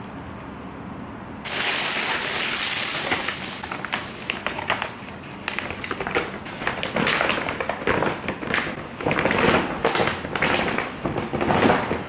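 Rustling and crackling as a large fabric laundry bag is unfolded and handled. It starts suddenly about a second and a half in and goes on in irregular loud bursts of crinkling.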